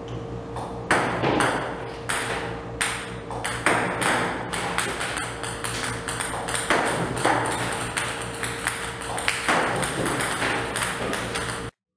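Table-tennis balls served by a ball robot clicking as they hit the table, a few a second at irregular spacing, over a steady hum. The sound stops abruptly near the end.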